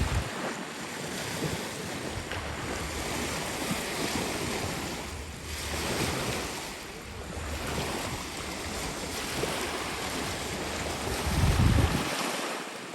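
Wind buffeting the microphone over the wash of waves: a steady rushing noise with low rumbling gusts, the strongest near the end.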